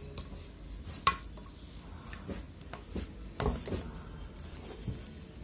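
Quiet handling noise: a few scattered soft taps and rustles as a crocheted chain of yarn is stretched out and measured against a tape measure.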